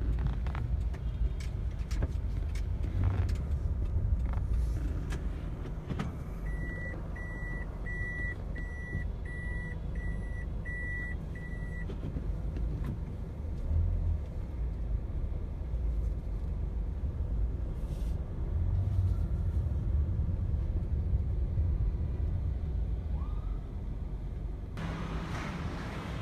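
Urban street and traffic noise with a steady low rumble. About six seconds in, a run of roughly eight evenly spaced, high electronic beeps sounds over about five seconds, like a vehicle's warning beeper.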